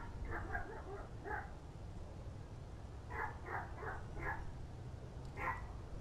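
A dog barking in short runs: several barks in the first second and a half, four more about three seconds in, and a single bark near the end.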